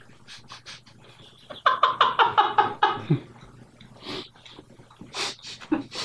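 A man laughing: a quick run of pitched bursts falling in pitch, starting about one and a half seconds in and lasting about a second and a half. A couple of short breathy huffs follow.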